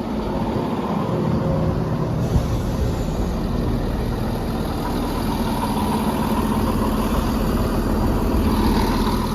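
Diesel engines of a ScotRail Class 170 Turbostar multiple unit running steadily while it stands at the platform, growing a little louder near the end as it prepares to depart.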